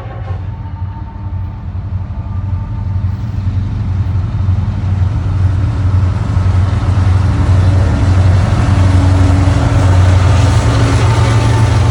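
Diesel locomotive running with a deep, steady engine rumble. The sound grows louder throughout as the train approaches.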